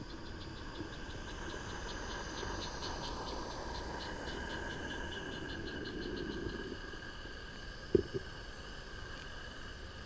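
Roundhouse Billy live-steam garden-railway locomotive and its wagons running past: a quick, even ticking of about four to five beats a second that fades out about seven seconds in. A single sharp knock, the loudest sound, comes about eight seconds in.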